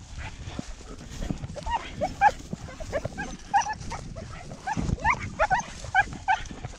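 Hunting hounds yelping in quick, short, high yelps, several a second, starting about a second and a half in. Low thumps sit underneath.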